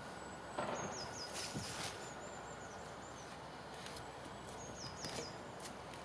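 A bird singing two short phrases of high, quickly falling notes, about a second in and again near the end, over a steady outdoor hiss. A brief noisy burst, the loudest moment, comes just before the first phrase.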